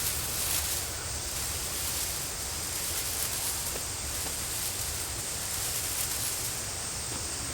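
Tropical forest ambience: a steady high-pitched insect drone over an even hiss of background noise, with faint rustling.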